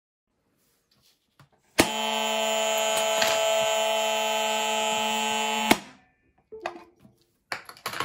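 Electric alarm buzzers of a 1962 Morio Denki SH232 railway-carriage emergency alarm, wired to a separate round buzzer as on JNR diesel railcars, buzzing in one steady harsh tone for about four seconds. They start with a click a couple of seconds in and cut off abruptly, and a few short handling knocks follow near the end.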